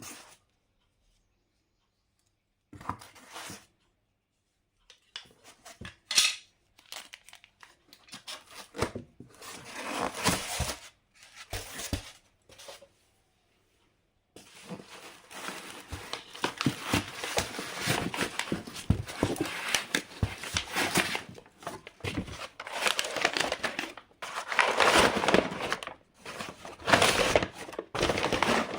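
Packaging being torn open and crumpled by hand during unboxing. The crinkling and tearing comes in short bursts with silent pauses at first, then runs on almost without a break through the second half.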